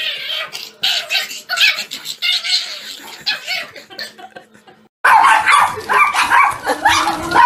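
Small dog yipping and barking in quick short bursts. About five seconds in, a cut brings a louder, busier stretch of yapping.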